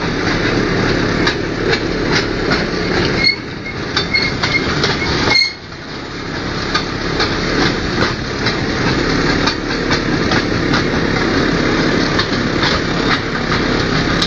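Motorized rail trolley running along narrow-gauge track: its engine running steadily while the wheels clatter and rattle over the rails. A few short squeaks come from the wheels or rails about three to five seconds in. The engine sound drops away sharply after about five seconds, then builds back up.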